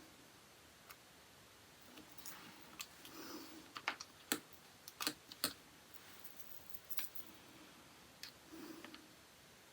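Scattered small clicks and taps of nail-art tools and polish bottles being handled, with a quick run of sharper clicks in the middle.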